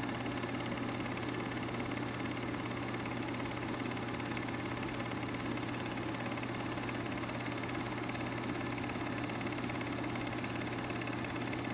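Film projector running: a steady mechanical whirr over a low hum.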